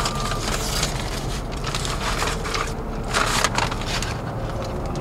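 Paper food wrapper crinkling and rustling as it is handled, in irregular bursts, with a small plastic condiment packet being worked open by hand.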